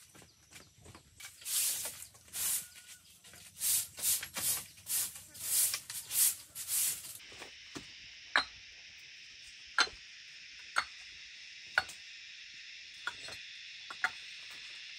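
Hand work on wood or bamboo: a run of irregular, rough strokes, then, after an abrupt change, sharp single knocks about once a second over a steady high hiss.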